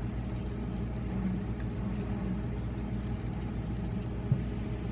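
Steady low mechanical hum with no change in pitch, and a single soft tick about four seconds in.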